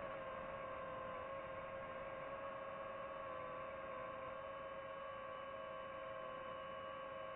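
FPV quadcopter's motors and propellers whining steadily in flight, a held high hum with a slight drop in pitch at the start.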